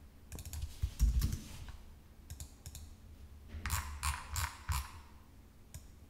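Scattered clicks of a computer keyboard and mouse, with a short run of keystrokes a little past the middle.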